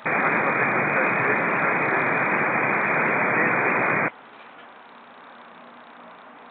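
Air-band VHF radio hiss from a transmission keyed with no voice on it: an open carrier of plain static lasting about four seconds and cutting off abruptly. A faint steady background hum follows.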